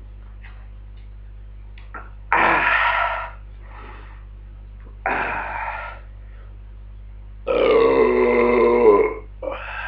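A man belching loudly four times after gulping down a bottle of carbonated malt liquor. The first two belches are short and come about 2 and 5 seconds in. The third, about 7.5 seconds in, is long and drawn out at nearly two seconds, and a short one follows near the end.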